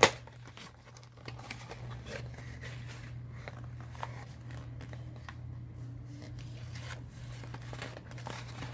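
A mail package being handled and opened: faint rustling, scraping and small clicks of the packaging, with a sharp snap at the start, over a steady low hum.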